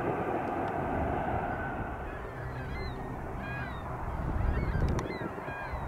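Geese honking, a run of short repeated calls from about two seconds in until near the end, over a low steady rumble.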